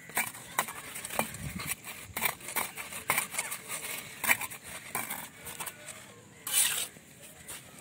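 Steel mason's trowel scraping and tapping against bricks and wet mortar as mortar is pressed into the joints of a brick course: a string of short scrapes and clicks, with one longer, louder scrape about six and a half seconds in.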